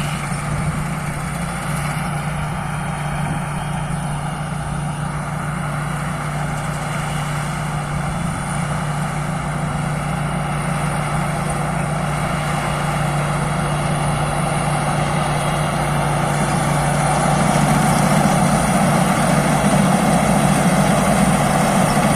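Rice combine harvester's engine running steadily, a continuous mechanical hum that grows louder over the last few seconds.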